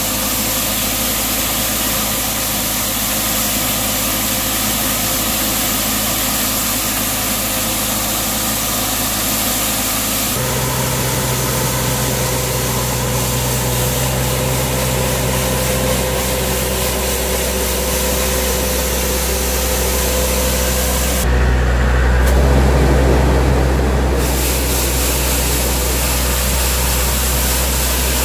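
Mathieu MC110 compact street sweeper running, its engine humming steadily while the rotating side brushes sweep the ground. The hum shifts abruptly about ten seconds in and again about twenty-one seconds in.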